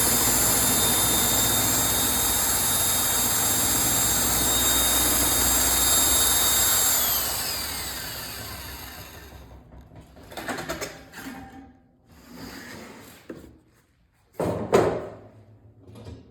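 Table saw running with a steady high whine while its blade cuts a spindle blank rotated in a lathe jig. About seven seconds in the saw is switched off and the blade spins down, its whine falling in pitch. Then come a few handling knocks, with one sharp knock near the end.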